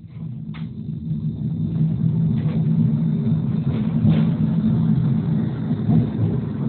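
Tram running, heard from inside the passenger car: a low rumble that grows louder over the first two seconds as the tram pulls away, then holds steady at speed.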